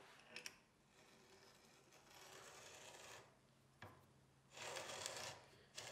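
Faint rasping and rubbing, twice for about a second each, with a few light metallic clicks as a steel thread tap and its wrench are handled in a hardwood nut.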